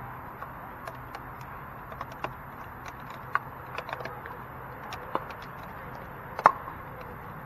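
Sharp pops of pickleball paddles striking a plastic ball, a few scattered short pops and one much louder pop about six and a half seconds in, over a steady background hiss.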